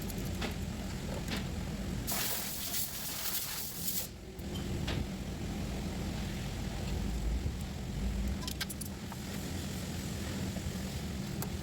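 Metal hand tools clinking and clicking against engine parts, a few separate knocks, over a steady low hum. About two seconds in, a hiss lasts roughly two seconds.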